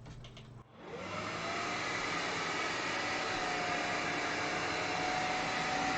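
Vax Glide cordless wet-and-dry floor cleaner switching on under a second in, its motor whine rising as it spins up and then running steadily while it sucks up spilled water.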